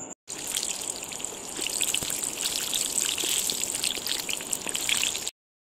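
Samosas deep-frying in hot oil: a dense crackling sizzle of many small pops that cuts off suddenly near the end.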